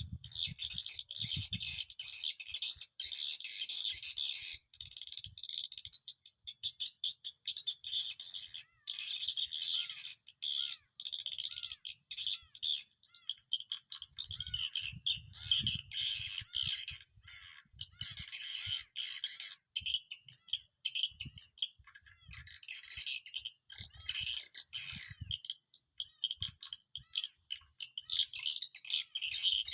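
Edible-nest swiftlets twittering in a dense, continuous chorus, with rapid clicks mixed in and scattered low thuds.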